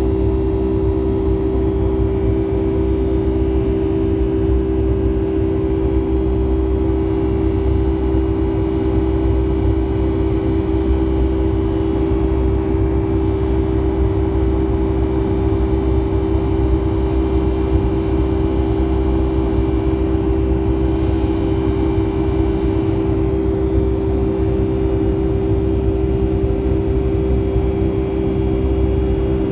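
Steady cabin drone of a Boeing 757-300 in its climb after takeoff: jet engines and airflow heard from inside the passenger cabin, with a strong steady hum over a low rumble.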